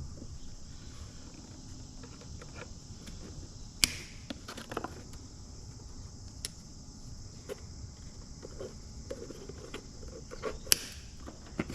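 Steady high insect chorus, like crickets, with two sharp clicks about four seconds in and near the end and scattered small ticks and knocks, as of baler wire and tools being handled.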